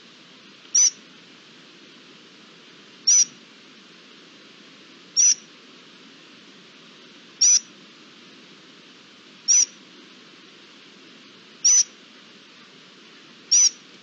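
A bird's short, high-pitched call repeated seven times, about every two seconds, over a steady background hiss.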